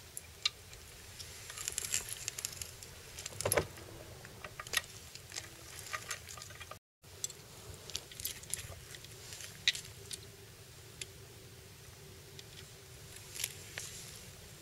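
Scattered small clicks, taps and rattles of hands fitting parts on an electric scooter's stem, with a hex key working in a plastic-and-metal clamp. The sound cuts out completely for a moment about seven seconds in.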